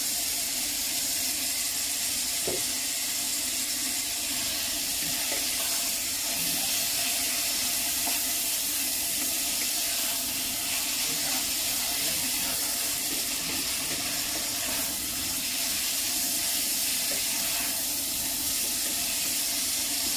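Sliced yellow cucumber stir-frying in a steaming pan, a steady hiss and sizzle as it is stirred with a wooden spoon.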